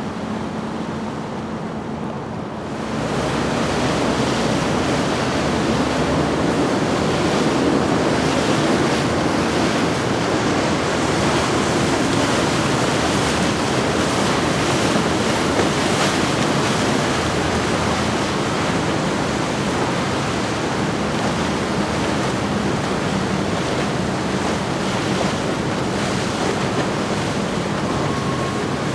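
Powerboats running past at cruising speed: a low steady engine hum, then from about three seconds in a loud, even rush of wake water and wind on the microphone.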